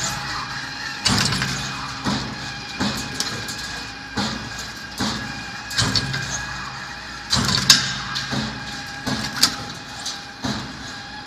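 Transformer lamination cut-to-length line running: its swing shear cuts the steel strip with a sharp metallic clack roughly once a second, a few cuts coming close together, over a steady machine hum.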